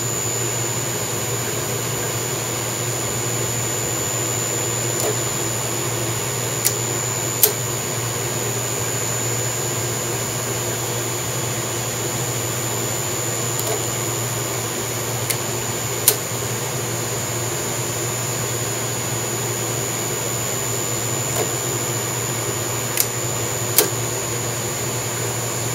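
CNC mill spindle running steadily with a tapping head, roll-tapping M5 threads: a steady hum with a high whine, broken by occasional short sharp clicks.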